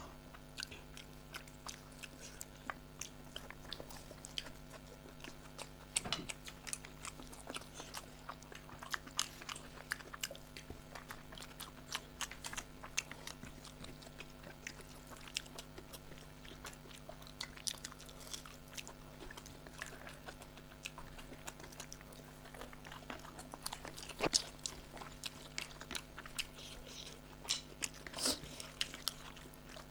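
People eating rice and chicken curry: chewing, biting and small irregular clicks of food and plate, over a steady low background hum.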